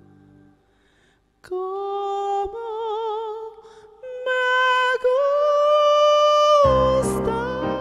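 A soprano sings slow, long-held notes with vibrato, unaccompanied, each step a little higher than the last. About five seconds in, the keyboard and classical guitar accompaniment comes in beneath her.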